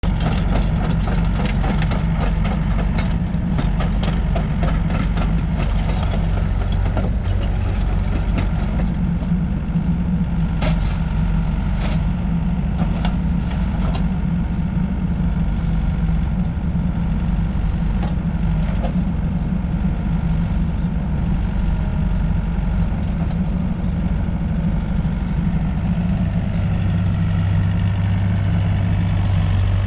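XCMG XE60DA midi excavator's diesel engine running steadily, with occasional sharp clicks over the steady hum; the low hum grows stronger near the end.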